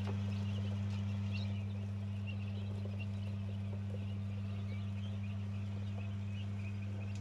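A brood of newly hatched quail chicks peeping, many short high peeps overlapping without pause. A steady low hum runs underneath.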